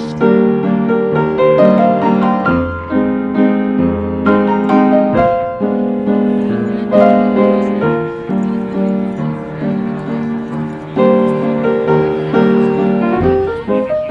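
Piano music playing, a steady run of sustained chords and melody notes.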